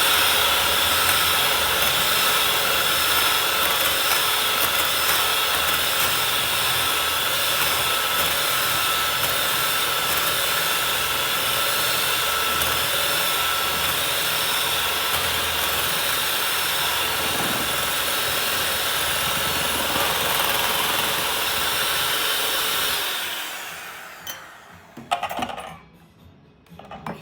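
Electric hand mixer running steadily, beating eggs in a bowl, then switched off about 23 seconds in, its motor winding down, followed by a few light knocks.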